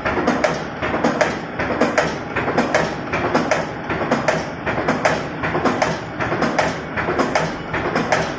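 Spring steel wire forming machine running, a steady rhythmic clatter of sharp metallic clacks that repeats in a cycle roughly once a second as it feeds, bends and cuts wire.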